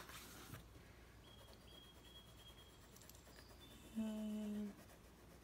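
Faint scratching of a green coloured pencil shading on paper, after a brief rustle of the sheet at the start. About four seconds in, a woman gives a short, steady closed-mouth hum lasting under a second, the loudest sound here.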